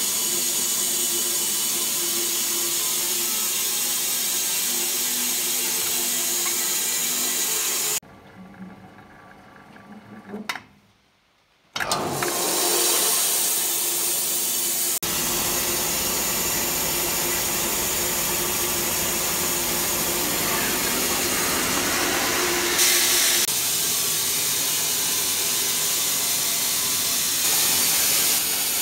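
Wood-Mizer LT15 band sawmill running steadily as it saws an oak log. It cuts out about eight seconds in and starts up again about four seconds later, rising in pitch as it comes back up to speed.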